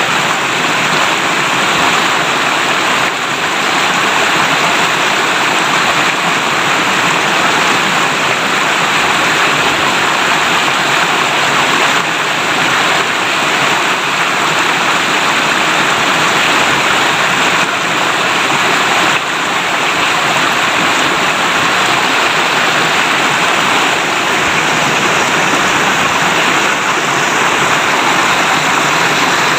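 River water babbling as it flows, a steady, unbroken rushing.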